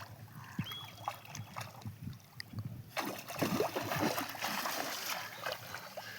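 Water splashing and sloshing, growing louder and fuller about three seconds in, as a fishing net and boat work in the water.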